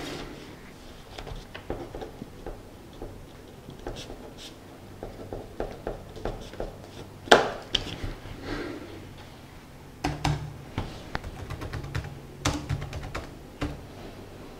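Typing on a ThinkPad laptop keyboard: irregular runs of key clicks, with a single louder, sharper tap about halfway through.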